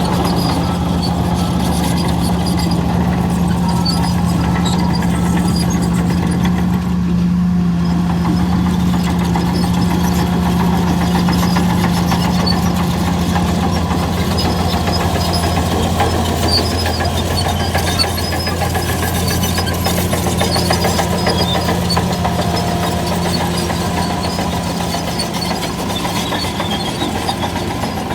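Heavy earthmoving machine's diesel engine running steadily at an even pitch.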